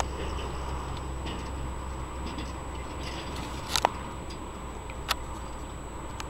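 Low, steady engine rumble of farm harvest machinery that fades away about halfway through, with two sharp clicks, one a little under four seconds in and one about five seconds in.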